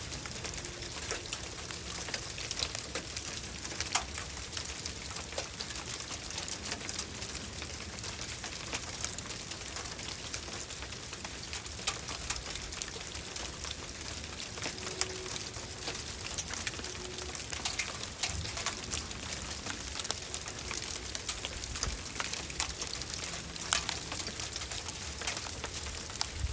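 Sleet falling and pattering on surfaces: a dense, steady spray of fine ticks over a soft hiss, with a few sharper taps standing out.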